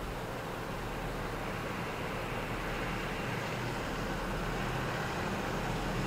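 Steady outdoor background noise: a low hum under an even hiss, with no distinct events.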